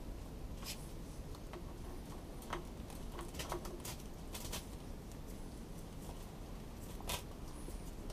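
Gloved hands handling the throttle pin and linkage at a tractor's governor housing: a few faint, scattered metal clicks and light handling noises over low steady background noise, with the engine not running.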